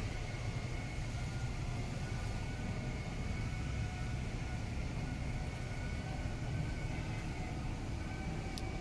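Diesel engine of an Isuzu garbage compactor truck idling, a steady low rumble, with a short sharp tick near the end.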